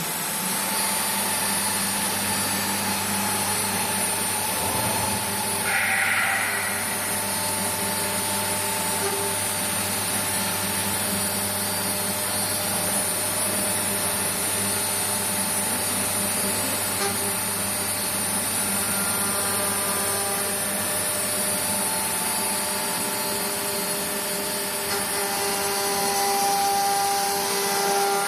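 G1325 4-axis CNC router running steadily, with several held machine tones over a noisy background and a brief higher sound about six seconds in.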